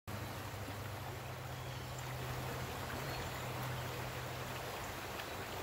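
Steady rushing of a trout stream flowing over rocks, with a low steady hum underneath that fades out near the end.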